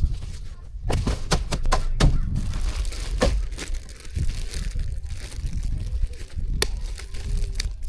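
Wind buffeting the microphone in a steady low rumble, with scattered sharp clicks and knocks from objects being handled.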